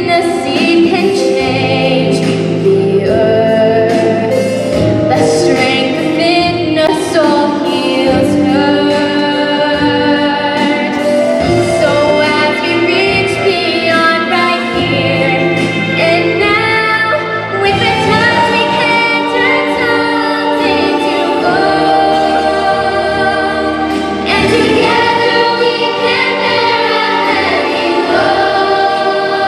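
A large children's choir singing, with a girl singing lead into a microphone, over steady musical accompaniment, heard through a big hall's sound system.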